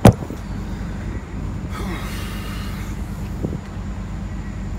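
One sharp, loud knock at the very start, over a steady low rumble. There is a short stretch of hiss about two seconds in.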